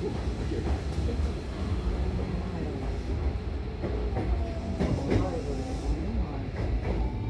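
Hankyu commuter train heard from inside the car as it pulls out and gathers speed: a steady low rumble of wheels on rail, with sharp clicks over rail joints and a faint motor whine.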